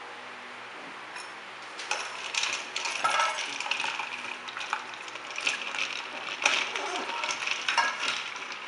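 A bowl with a wire whisk in it being set down into a stainless steel bowl of ice water. Ice cubes clink and knock against each other and the metal, in irregular clatter starting about two seconds in.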